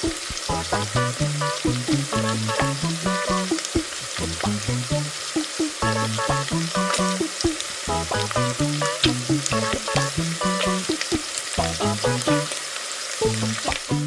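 A frying sizzle sound effect, a steady hiss with small crackles, laid over light background music with a bouncy melody of short notes.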